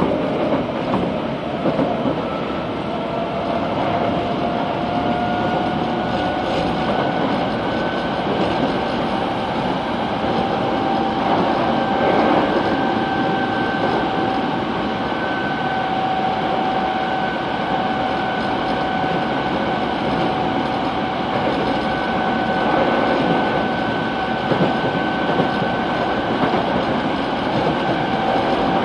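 Kobe City Subway 3000 series train running, heard from on board: a steady rumble of wheels on rail with the whine of its Hitachi GTO inverter and traction motors, rising in pitch over about the first ten seconds as the train gathers speed, then holding steady.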